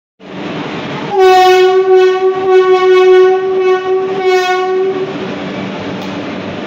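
Indian Railways locomotive horn sounding one long, steady blast of about four seconds, starting about a second in. Platform crowd noise carries on underneath it and after it.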